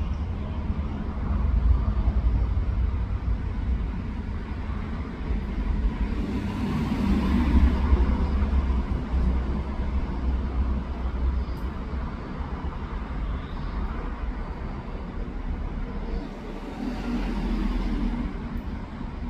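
Steady low outdoor rumble that swells twice, once about a third of the way in and again near the end.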